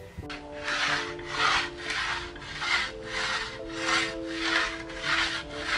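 Broad knife blade sharpened by stroking it back and forth on a wooden plank: a rasping scrape on each stroke, about nine strokes at an even rhythm of a little under two a second.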